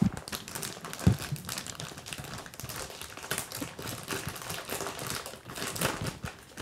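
Plastic packaging bags crinkling and rustling in irregular crackles as a laptop is slid out of its double wrapping. Two dull knocks, the loudest sounds, come right at the start and about a second in.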